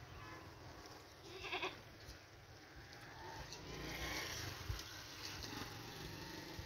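A goat bleats once, briefly, about one and a half seconds in, over a steady low background rumble with small scattered clicks.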